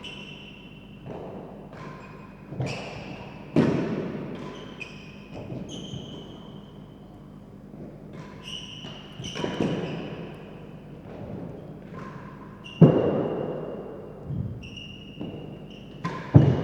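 Real tennis rally: the hard ball knocks off rackets, the court walls and the floor about a dozen times, irregularly spaced, with sharper, louder hits about three and a half seconds in, near thirteen seconds and just before the end. Short high squeaks come between the hits.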